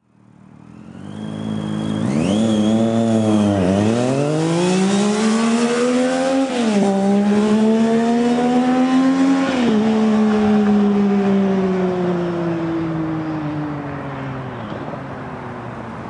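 Triumph Street Triple three-cylinder engine breathing through Chain Reaction dual aftermarket exhausts, accelerating hard through the gears: the note climbs and drops sharply at three upshifts. It then sags in pitch and fades as the bike rides off.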